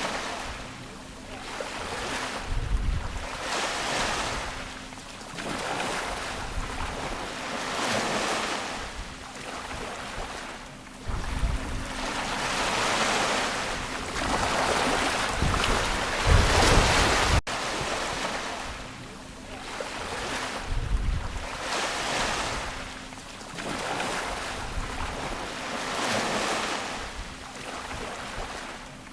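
Ocean waves washing onto a shore, the surf swelling and falling back every couple of seconds, with some deeper rumbles. About 17 seconds in, the sound breaks off abruptly and starts again, as at a loop or edit point.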